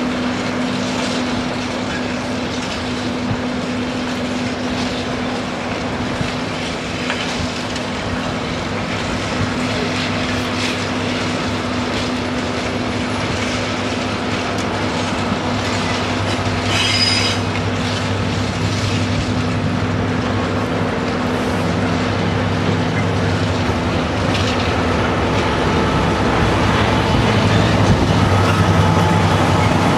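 Two Class 66 diesel locomotives running past, their EMD two-stroke V12 engines giving a steady drone that grows louder toward the end. The wheels click over the rail joints, with a short high wheel squeal just past halfway.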